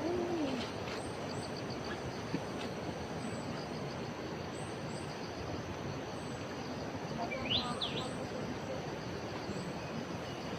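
Yellow-bellied whistler calling: two quick rising whistled notes about seven and a half seconds in, over a steady hiss of forest background with faint high chirps repeating every second or so.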